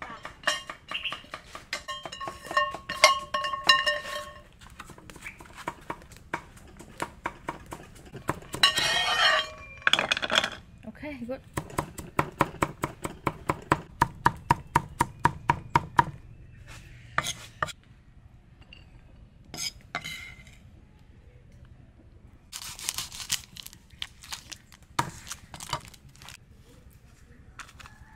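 Cleaver chopping red onion and garlic on a wooden chopping board: a fast, even run of knocks, about five a second, lasting several seconds, with scattered clinks of kitchenware around it.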